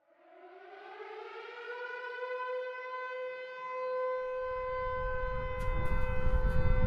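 Air-raid siren winding up: its pitch rises over the first second or two, then holds one steady note. From about four seconds in, a low rumble builds underneath, and sharp cracks come in near the end.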